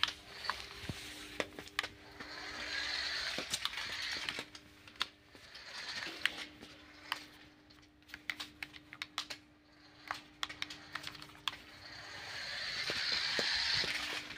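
Toy remote-control car's small electric motor and plastic gearbox whirring in two runs as it drives across a tiled floor, rising about two seconds in and again near the end. Scattered sharp plastic clicks and taps come between the runs.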